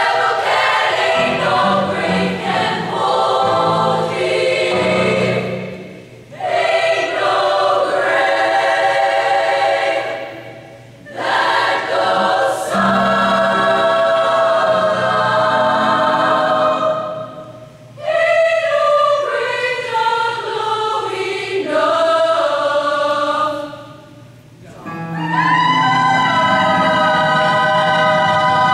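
Women's choir singing a gospel song, its phrases broken by four short pauses of about a second each.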